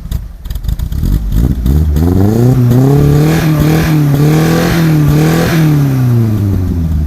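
Toyota Carina car engine revved hard, its exhaust hole freshly plugged: the pitch climbs after about a second and a half, is held high with small dips, then falls back to idle near the end.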